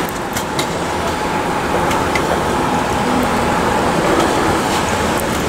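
Steady city street traffic noise, with a faint steady whine and a few light clicks.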